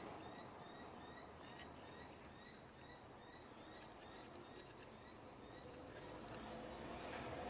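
Faint chirping from a small animal, one short call repeated about three times a second for several seconds, with a few light clicks.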